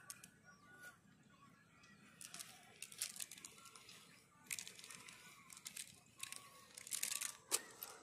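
Cast net rustling in several short bursts as it is shaken out and gathered up by hand.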